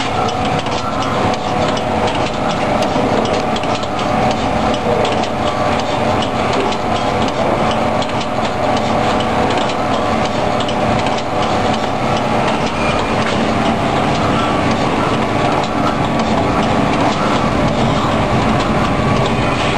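Automatic tea-bag packing machine (thread-and-tag type) running: a steady, dense mechanical clatter of its moving parts, with rapid ticking throughout.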